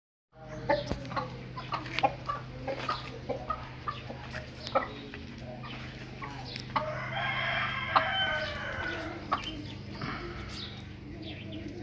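Chickens clucking in short, sharp calls, then an asil rooster crows once, a single long call of about two and a half seconds near the middle, over a steady low hum.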